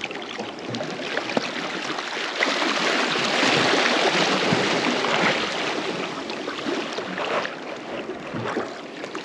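Sea water washing over shallow, weed-covered rocks at the water's edge, a surge building to its loudest about three to five seconds in and then easing off.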